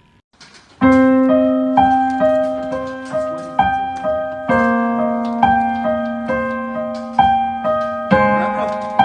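Background piano music: a gentle melody of single notes, roughly two a second, each fading away over a held low note, starting about a second in after a brief silence.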